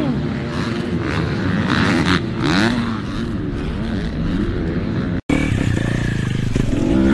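Dirt bike engines revving up and down, their pitch rising and falling. A hard cut about five seconds in brings in another motorcycle engine, which grows louder near the end.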